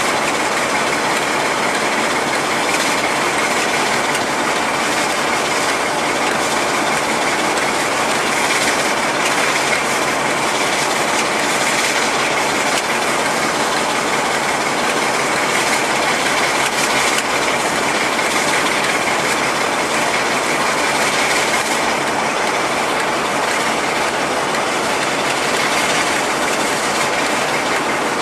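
Diesel locomotive running steadily at a standstill or crawl: an even engine and machinery noise with a steady high whine over it, no change in pace.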